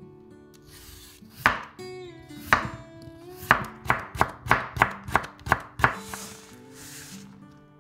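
Chef's knife slicing a raw potato on a wooden cutting board: about ten sharp knocks of the blade on the board, quickening to about three a second before stopping about six seconds in. Light background music plays under it.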